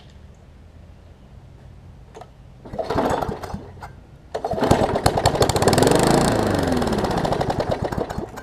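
A Briggs & Stratton Classic single-cylinder push-mower engine being pull-started just after a carburetor rebuild: the first pull gives a brief sputter, and on the second it catches and runs with a rapid, even firing beat, its speed rising and falling, before it stops suddenly near the end.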